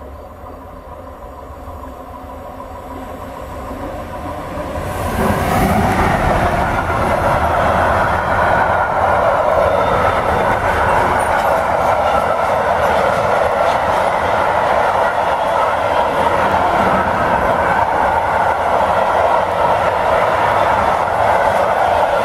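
Freight train approaching and passing close by, its electric locomotive growing louder over the first five seconds. The locomotive then goes by and a long rake of covered sliding-wall freight wagons rolls past, their wheels making a loud, steady rumble on the rails.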